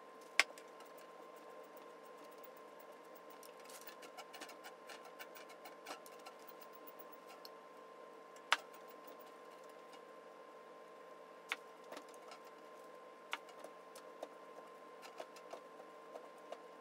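Small metal clicks and light ticks as hands work the threaded adjusting shaft and front-panel parts of an old transformer welding machine: a few sharp clicks seconds apart and clusters of quick ticks, over a faint steady hum.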